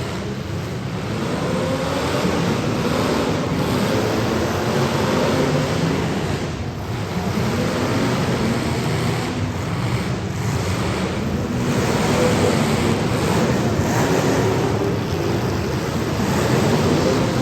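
Several demolition derby car engines running and revving together in a dense, loud roar, their pitch wavering up and down.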